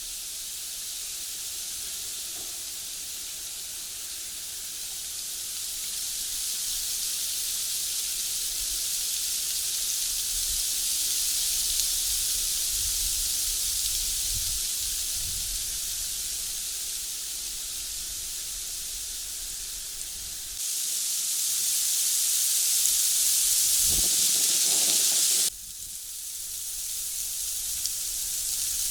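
Steady high-pitched hiss with no distinct calls or knocks; it jumps louder about twenty seconds in and drops back suddenly about five seconds later.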